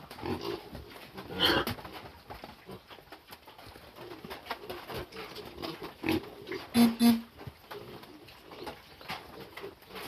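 Close-up eating of a ripe pawpaw: wet bites, chewing and slurping of the juicy flesh, loudest about one and a half seconds in and again around seven seconds in. A dove coos in the background.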